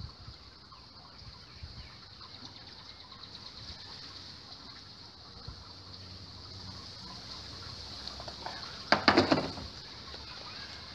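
Hands stirring damp soil bedding and straw in a metal tub worm bin, a soft rustling, with one short, louder burst of noise about nine seconds in. A steady high-pitched hiss runs underneath.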